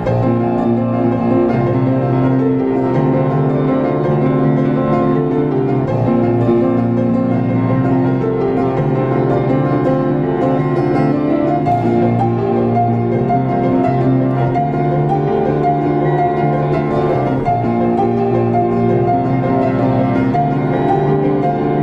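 Diapason grand piano played solo: a continuous piece with held low notes under a moving melody, without pause.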